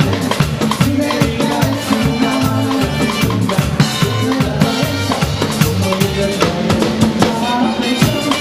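One-man band playing up-tempo Latin dance music: keytar over a steady drum beat and a moving bass line.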